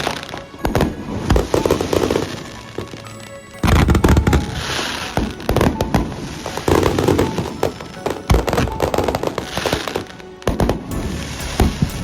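Fireworks display: heavy shell bursts booming about every four to five seconds, each followed by a wash of crackling, with smaller pops and bangs in between.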